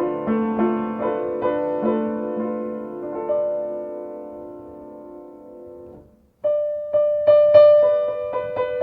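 Solo piano tuned with C at 528 Hz, playing a slow phrase of notes over chords. A chord is held and fades away, there is a short break about six seconds in, then a new phrase starts with repeated higher notes.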